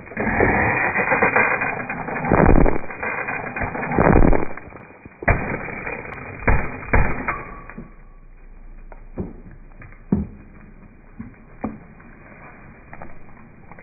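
Car tire rolling over brittle objects and crushing them: dense crunching and crackling for about five seconds, a few sharp snaps, then fainter scattered cracks.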